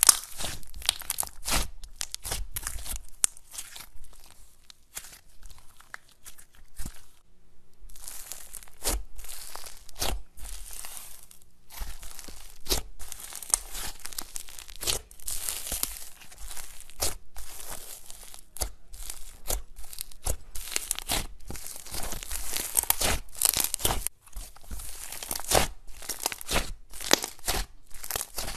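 Slime squeezed, pressed and poked by hand, giving dense crackling and popping clicks, with short breaks about 7 and 12 seconds in.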